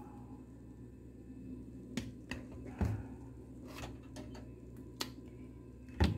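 Metal fork clicking and knocking against dishes while almond butter is spooned onto oatmeal: a few separate clicks and thuds, the loudest near the end, over a low steady hum.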